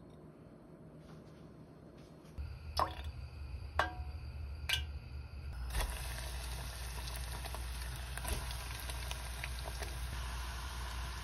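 Three sharp, briefly ringing clinks about a second apart, then from about six seconds in a steady sizzle of panko-coated potato-shrimp croquettes deep-frying in hot oil in a small enamel pot.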